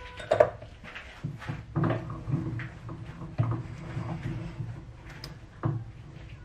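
Small metal hand tools being handled and set down on the lathe: a series of irregular clunks and clinks, the loudest about half a second in, over a steady low hum.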